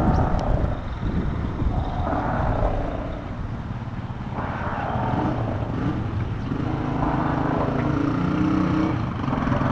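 A motor vehicle's engine running, with a low rumble throughout and a steady hum that becomes clearer in the last three seconds.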